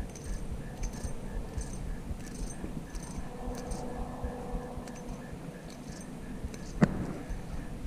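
Low rumble of wind and handling noise, with faint high insect chirps repeating a little faster than once a second, and one sharp click near the end.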